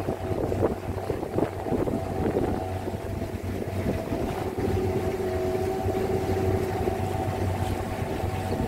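A small motorboat's engine running at a steady pace while the boat is under way, with wind buffeting the microphone, most in the first few seconds.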